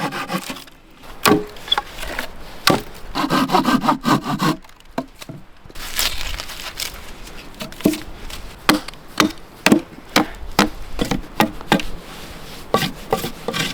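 Hand saw cutting through a log, with a dense stretch of stroking about three seconds in. From about six seconds in comes a run of short, sharp knocks on the wood, about two a second.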